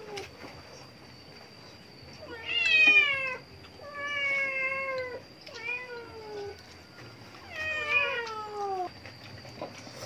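Cat meowing repeatedly: four long meows, each sliding down in pitch, spaced a second or so apart.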